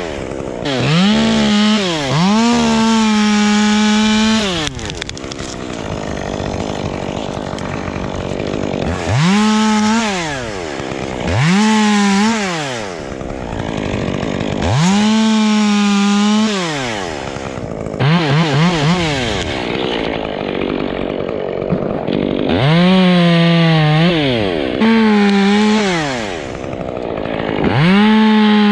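Two-stroke chainsaw revved again and again, about nine times: each time the engine climbs to full throttle, holds there for a second or two, then drops back toward idle. Around the middle of the stretch it gives a few quick stuttering blips.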